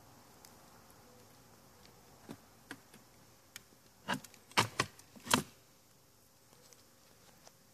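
Handling noise: a few short clicks and knocks as wiring harnesses are pushed around by hand inside the massage chair's metal electronics bay. Two light ones come about two and a half seconds in, then a louder cluster between four and five and a half seconds, over a faint steady hum.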